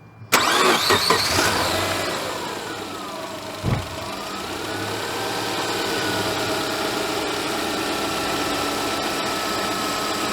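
A Subaru Legacy's EJ20 flat-four engine starts, its revs flaring and sweeping down, then settles into a steady idle. The accessory belt runs on a newly replaced idler pulley, without the high-pitched rattling that a failing idler pulley makes. There is a single short thump about four seconds in.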